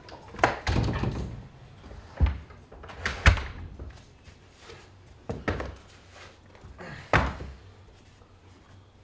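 Front door being shut and its lock worked: a series of knocks and thuds, the loudest a heavy thunk about three seconds in. Later, a few dull thumps as shoes are kicked off onto the floor.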